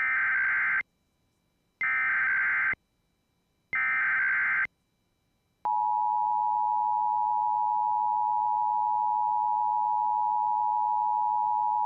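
Emergency Alert System SAME header: three bursts of warbling digital data tones about a second each, encoding a Blue Alert. About six seconds in they are followed by the EAS attention signal, a steady two-tone sound of 853 and 960 Hz played together.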